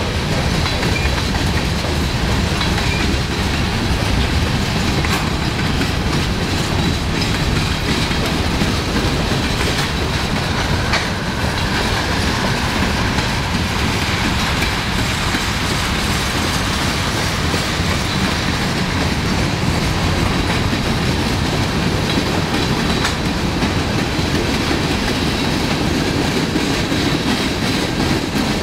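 Slow freight train of tank cars and covered hoppers rolling past: a steady rumble of steel wheels on the rails, with a few sharp clacks over rail joints.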